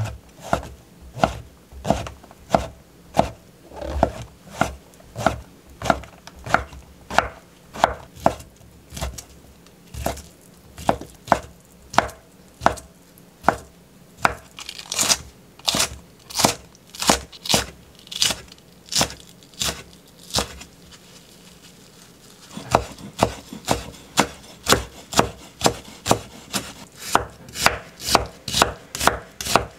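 Chef's knife chopping on a wooden cutting board, slicing king oyster mushrooms and fish cake with steady strikes about two a second. The chopping breaks off about twenty seconds in, then picks up again at a quicker pace.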